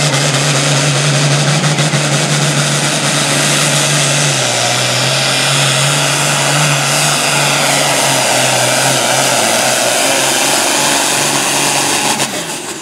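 Pulling tractor's engine at full throttle, loud and steady as it drags the weight-transfer sled; its pitch drops a step about four seconds in as the load builds. The sound falls away suddenly near the end.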